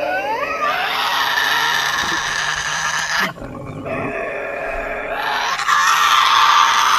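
Tasmanian devil screeching and growling: a harsh, continuous call that breaks off briefly a little after three seconds, then resumes and grows louder near the end.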